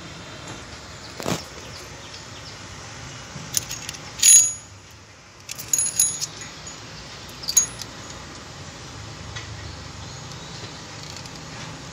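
Loose steel timing chain of a Maruti Swift diesel engine clinking and jingling against its sprockets as it is handled, in a few short separate bursts, the loudest about four seconds in.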